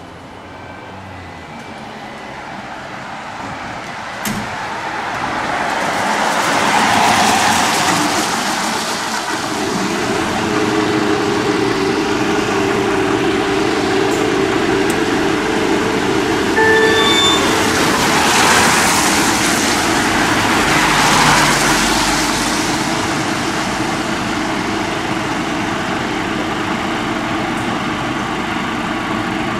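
The bay door runs up, then a Scania P280 fire engine's diesel runs at idle, with two loud hissing surges of air, one a few seconds in and one past the middle. A short run of rising beeps sounds partway through.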